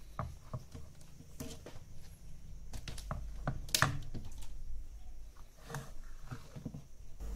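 Irregular small clicks and light knocks from handling a SUNWA YX-960TR analog multimeter: its rotary range selector is turned through its detents and the plastic case is shifted on a wooden table. The sharpest click comes about four seconds in.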